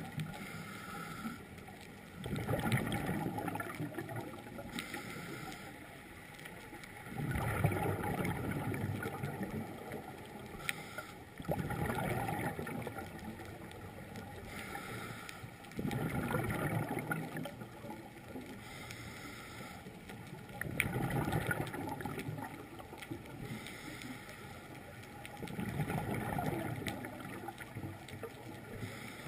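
A scuba diver breathing through a regulator, heard underwater: a rush of exhaled bubbles about every four to five seconds, six times, with quieter stretches between.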